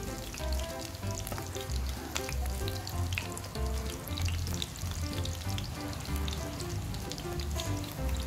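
Battered eel pieces deep-frying in hot oil in a frying pan: a steady sizzle with dense fine crackling. Background music with a pulsing bass line plays over it.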